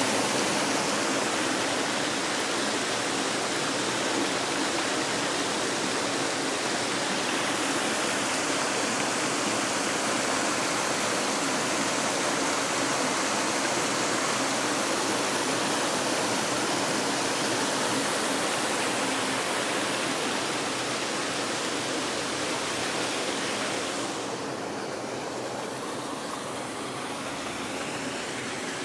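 Heavy storm runoff rushing: water pouring through a street storm-drain grate and spilling over a grassy bank edge in a steady rushing noise. It becomes quieter and duller about 24 s in, as the flow along the curb gutter takes over.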